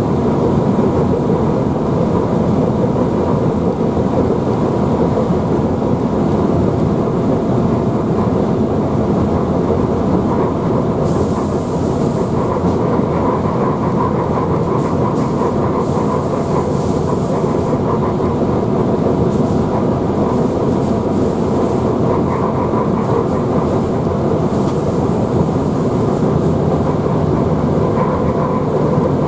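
Cab of a ČD class 121 electric locomotive running at speed: a steady rumble of wheels on the rails with a faint steady whine, and a few brief spells of higher hiss.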